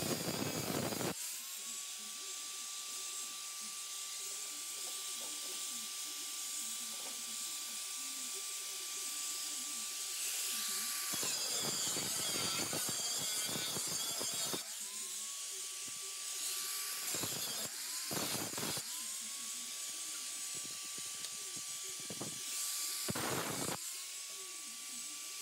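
Electric angle grinder cutting rusted sheet steel: a steady high whine while it spins free, broken several times by harsh grinding stretches as the wheel is pressed into the metal, the motor winding back up in pitch each time it is lifted off.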